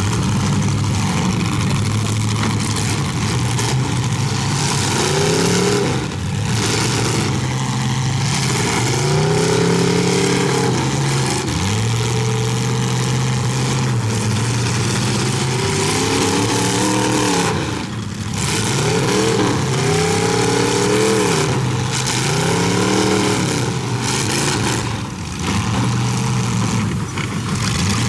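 Demolition derby cars' engines running hard, revved up and down again and again, the pitch climbing and falling every second or two over a steady low engine drone.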